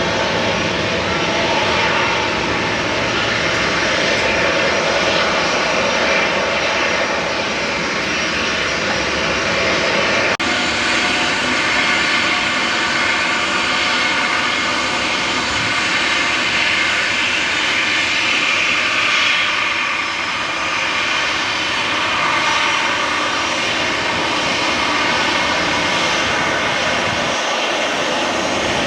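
Jet engines of a Boeing 737-800 converted freighter (CFM56 turbofans) running loud and steady at close range, with a whine over the rush. The sound changes abruptly about ten seconds in.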